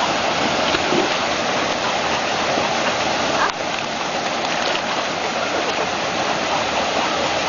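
Steady rush of flowing water, with a brief knock about three and a half seconds in.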